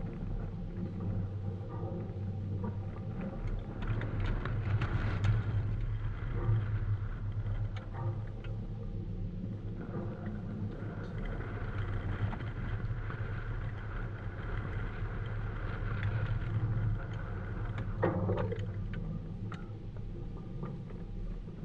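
Steady low rumble of outdoor background noise, with a few faint knocks.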